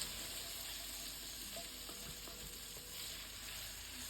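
Sliced onions and chopped garlic sizzling quietly in bacon fat in a frying pan, a steady hiss.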